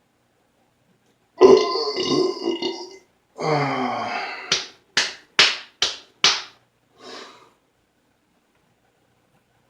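A man belches loudly twice, each belch long and deep. Then come five sharp slaps in quick succession, about two a second.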